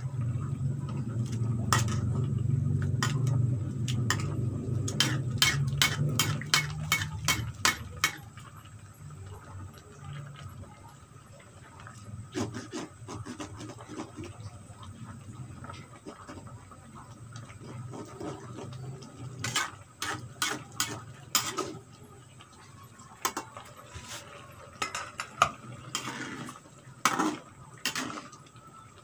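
A metal ladle scrapes and clacks against a non-stick pan while cassava leaves in coconut milk are stirred, in runs of quick clicks with pauses between. A low steady rumble sits under the first several seconds, then fades.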